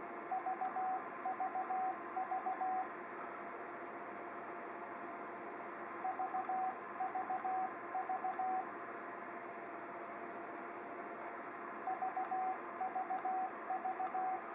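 Ten-Tec Eagle transceiver's CW sidetone: three bursts of short Morse beeps at one mid pitch, each burst three quick groups of dots, about six seconds apart. Each burst is a keyed transmission into a dummy load at a successive power setting. A steady low hiss lies underneath.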